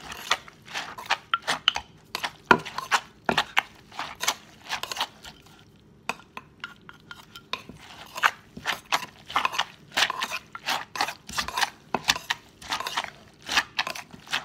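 Wooden pestle knocking in a clay mortar while a metal spoon scrapes and turns shredded green papaya salad: a steady run of irregular knocks and clinks, with a short pause about five and a half seconds in.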